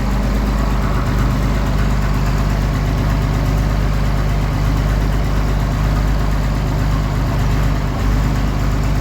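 Tractor engine idling steadily, with no change in revs.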